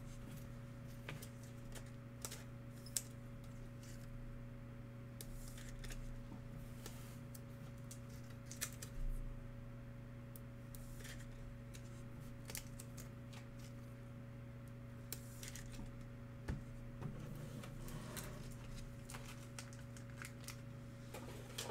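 Trading cards and clear plastic card sleeves being handled: scattered soft clicks and rustles as cards are sorted and slid into holders, over a steady low hum.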